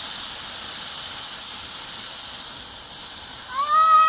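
Chicken strips and sliced bell peppers and onions sizzling steadily on a hot Blackstone flat-top griddle. Near the end a child's high-pitched voice cries out briefly, louder than the sizzle.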